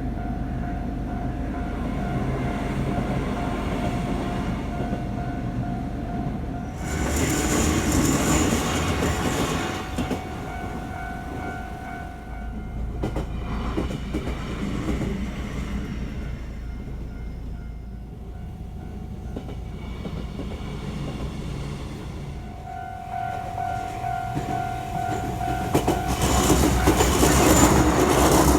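Japanese level-crossing warning bell ringing steadily as a Shizuoka Railway A3000 series electric train runs past with wheel and rail noise. The bell stops about halfway through and starts again, and a second loud train passes near the end.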